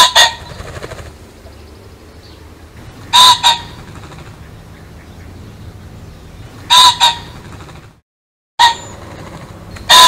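Pheasant calling: a loud, harsh double call, two notes a fraction of a second apart, repeated about every three and a half seconds over faint steady background noise. The sound drops out briefly about eight seconds in, then the calls go on.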